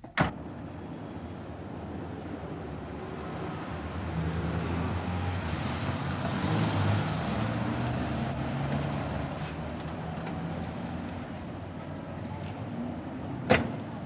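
BMW 5 Series saloon's engine running in street traffic, growing louder as the car draws up and then easing off. A sharp knock comes right at the start, and a car door shuts about half a second before the end.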